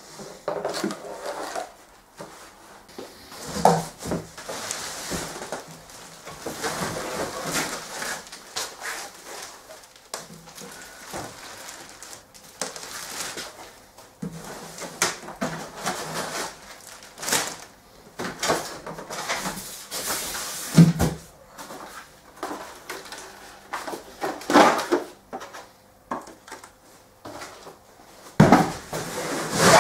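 Packaging being handled as a boxed 3D printer is lifted out and unwrapped: irregular rustling of plastic wrap and cardboard, with a few sharp knocks or thumps.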